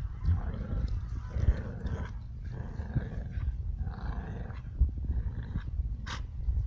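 Dogs growling in play, in repeated rough growls of half a second to a second each over a low rumble, with one short sharp high yip about six seconds in.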